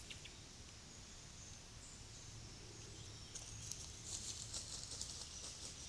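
Faint outdoor recording from a wildlife camera trap: a high, steady chirring that turns into a rapid crackling trill about three seconds in, over a low hum.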